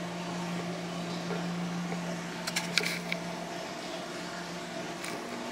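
Steady low hum of a kitchen appliance running, with a few sharp clicks and taps about two and a half to three seconds in. The hum drops out about four seconds in and comes back near the end.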